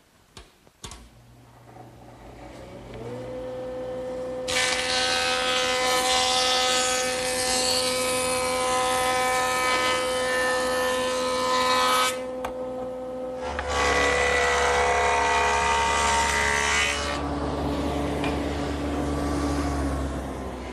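A jointer starts up about a second in, its cutterhead whine rising to a steady pitch. Board edges are then fed across the knives twice, each pass a long stretch of cutting noise, about seven seconds and then about three and a half. The machine runs on between and after the passes.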